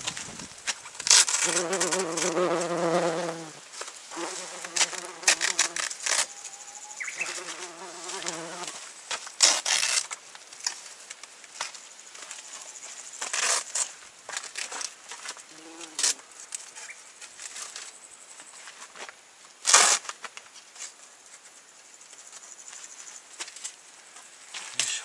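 A flying insect buzzing close by, in three passes of a second or two each in the first nine seconds. Brief rustling noises from the awning fabric and its fastening straps being handled come and go throughout, the loudest about twenty seconds in.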